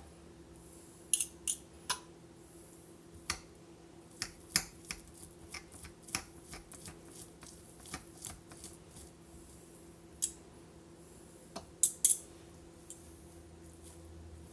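Kitchen utensils clicking and tapping irregularly against a dish while cooked chicken is shredded, with a cluster of sharper clicks near the end.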